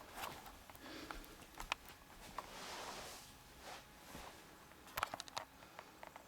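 Faint handling noises: scattered light clicks and rustles as the phone-book target and the handheld camera are handled, with a soft breath about two and a half seconds in.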